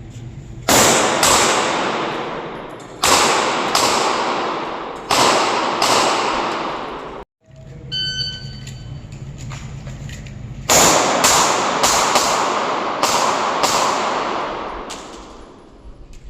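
Handgun shots fired in quick strings, about half a second to a second apart, each followed by a long echoing decay. Midway the sound cuts out briefly, then a short electronic beep, typical of a shot timer, sounds before a second string of shots.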